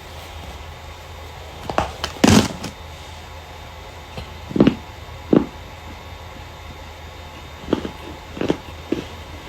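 Starch being crushed for ASMR: about seven separate short crunches, the loudest about two seconds in, over a steady low hum.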